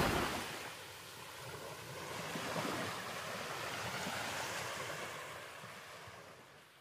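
Ocean surf washing ashore, a steady rush of waves that fades away near the end.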